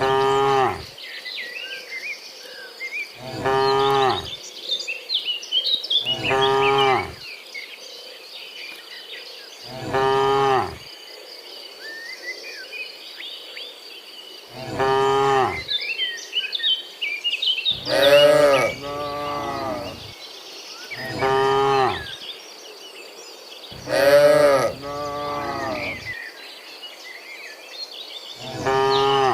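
Cattle mooing again and again, one long low moo every three seconds or so, two of them louder and longer, near the middle and two-thirds through. A steady high insect drone and scattered bird chirps run underneath.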